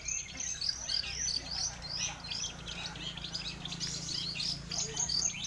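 Many songbirds chirping and trilling at once in a dense, continuous chorus, like the din of a bird-song contest, over a faint steady low hum.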